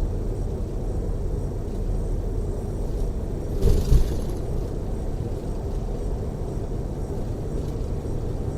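Steady low rumble of a tour coach's engine and tyres at highway speed, heard inside the passenger cabin, with a brief loud jolt about three and a half seconds in.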